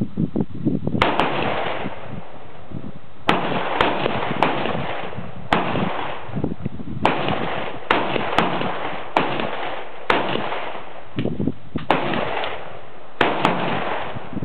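Gunshots fired at an outdoor range, about fifteen at irregular intervals, some in quick pairs, each sharp report followed by a trailing echo.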